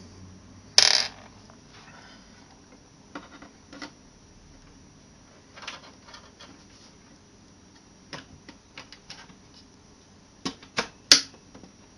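Scattered metal clicks and knocks from hand work on a PC case as a screw is taken out of an expansion slot. The loudest knock comes about a second in, and three quick clicks come near the end.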